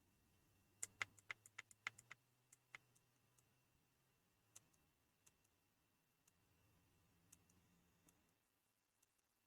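Small sharp clicks of the Pinecil soldering iron's tactile menu buttons being pressed: a quick run of about eight in a second and a half, then a few fainter, spaced-out presses.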